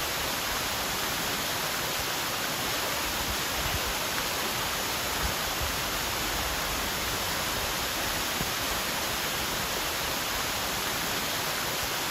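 Moss Glen Falls, a cascading waterfall, pouring steadily over rock into its pool: an even, unbroken hiss of falling water.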